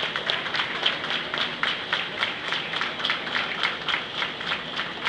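A crowd applauding, many overlapping hand claps with single sharp claps standing out.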